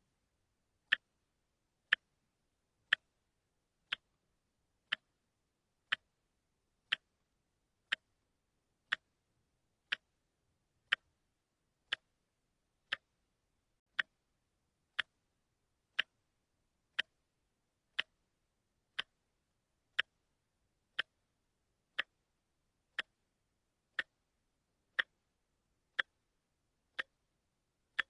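A watch ticking steadily, one sharp, short tick a second at an even pace.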